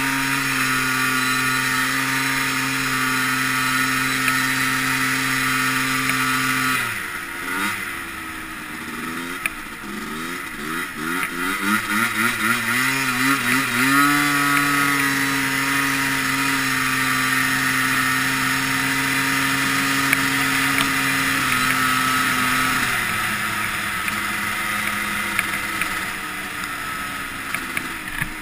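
Yamaha Blaster quad's single-cylinder two-stroke engine under way: it holds a steady pitch, then about a quarter of the way in the throttle is let off and blipped repeatedly, the revs swinging up and down quickly for several seconds. It then settles at a steady, higher pitch and eases off to a lower steady pitch later on.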